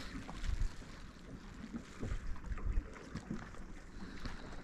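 Wind gusting on the microphone in low, uneven rumbles, with faint sounds of water against the shore.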